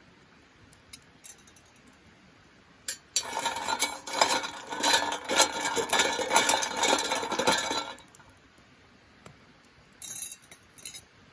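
Ice cubes clinking and rattling inside a stainless steel tumbler of iced whisky as it is lifted and tilted, for about five seconds, with a few more short clinks near the end.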